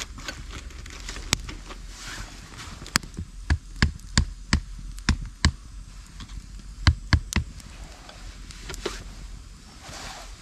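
A quick, irregular run of sharp wooden knocks and taps, about a dozen within four seconds in the middle, from sticks being handled beside a campfire, with quieter rustling around them.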